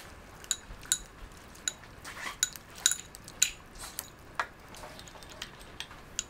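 A ceramic soup spoon and chopsticks clinking against a ceramic bowl while rice noodles are stirred in broth: about a dozen irregular, sharp clinks, some with a short bright ring.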